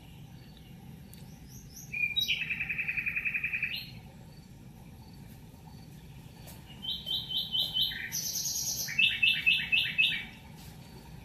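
A songbird singing in fast trills: one rapid trill about two seconds in that lasts nearly two seconds, then a longer run of quick repeated phrases near the end that jump between higher and lower pitches.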